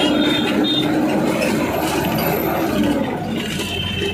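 Moving bus heard from inside: its engine running with steady road and traffic noise.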